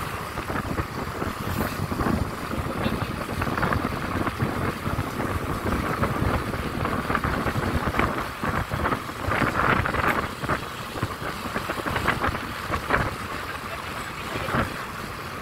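A moving vehicle running, heard from close by, a steady noisy rumble broken by irregular knocks and rattles.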